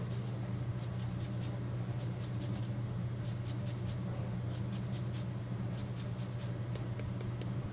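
Lime rind scraped over a fine rasp zester, a run of quick, repeated scratching strokes. A steady low hum lies underneath.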